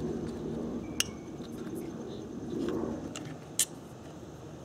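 Two sharp clicks of hard parts being handled under a car's hood while an ignition coil and its connector are refitted, about two and a half seconds apart, over a low rustling rumble of handling noise.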